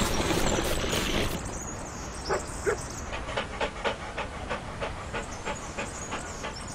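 A dog panting in quick, even breaths, about three a second, after a hissing noise in the first second or so.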